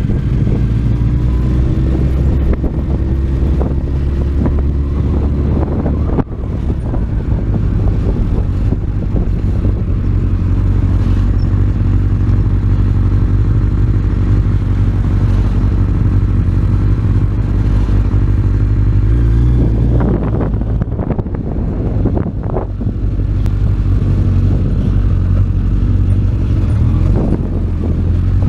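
Motorcycle engine heard from on board while riding slowly, its pitch rising and falling with the throttle, with a brief dip in level about six seconds in.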